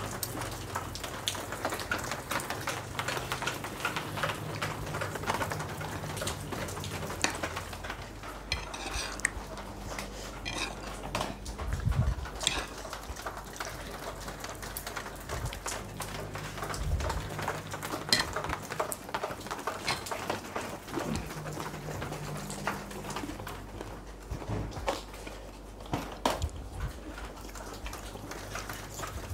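Spoon and fork clinking and scraping on a plate while eating, with rain falling and a low steady hum underneath.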